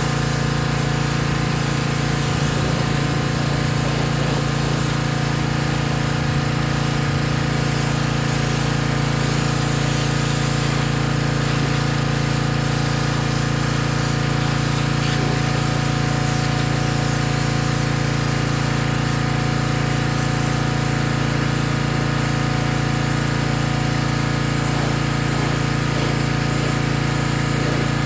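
Small vertical-shaft gasoline engine of a pressure washer running steadily, driving a new CanPump axial pump that is spraying a high-pressure water jet.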